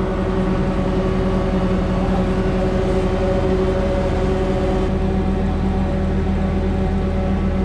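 Engine and hydraulics of a pile-pressing rig running steadily with an even, unbroken hum.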